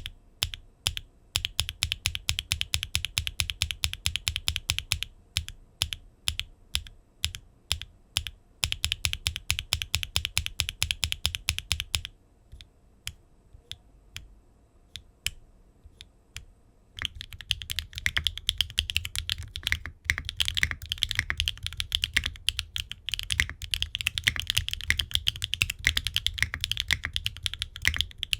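Typing on a custom mechanical keyboard with HMX Cthulhu linear switches, in an aluminium gasket-mount case with aluminium plate, no foam and ABS double-shot keycaps: each keystroke gives a deep low bottom-out along with a sharper click. Fast runs of typing alternate with slower, separate key presses, and a quieter stretch of only a few single presses comes about halfway through before fast typing resumes.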